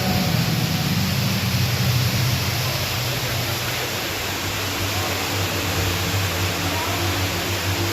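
Underground waterfall (Ruby Falls) rushing steadily inside the cave, with a low steady hum underneath.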